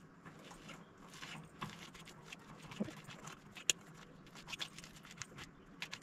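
Fork mashing ripe bananas in a steel bowl: faint, irregular taps and scrapes of the fork against the metal, with one sharper clink a little past halfway.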